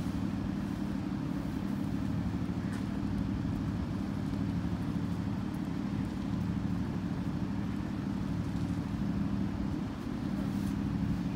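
Steady low hum of an idling engine, even and unchanging throughout.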